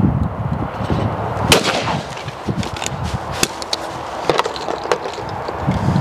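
A single shot from a Blaser F16 over-and-under shotgun fired at a going-away clay, about a second and a half in. Near the end, clicks of the gun being broken open.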